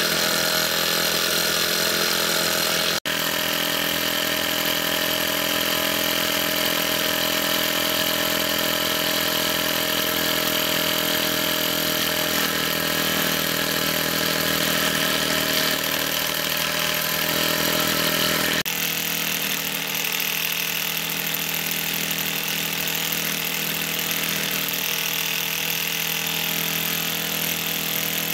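Mamod MM2 toy steam engine, a single-cylinder engine with no speed control, running flat out under steam with a steady, even mechanical whir. The sound shifts abruptly about 3 seconds in and again near 19 seconds.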